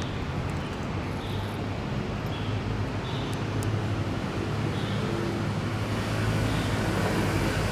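Steady low rumble of road traffic, growing a little louder about six seconds in.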